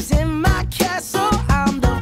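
Pop music: a singing voice over a steady beat.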